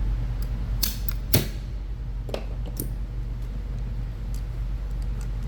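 A few short sharp clicks and taps from the receiver pin of a Lonex L4PR01 airsoft M4 replica being pushed out. The loudest comes about a second and a half in, over a steady low hum.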